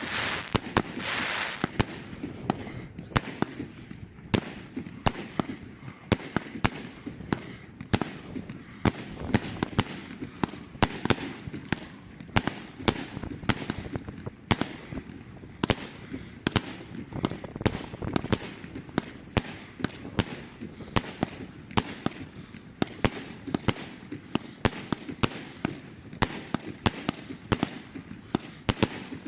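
Fireworks going off: a dense, irregular run of sharp bangs and crackles, several a second, over a low rumble, with a brief hissing rush about a second in.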